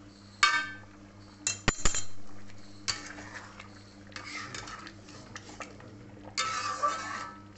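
Utensils clinking sharply against a steel wok several times in the first two seconds, then a spatula scraping through thick spinach-and-paneer gravy in a few strokes as it is stirred.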